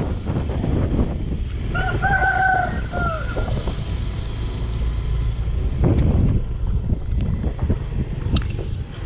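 A rooster crows once, about two seconds in: a single pitched call lasting about a second and a half that bends up, holds, then drops. Underneath runs a steady low rumble of wind on the microphone and a motorcycle riding on a rough dirt road.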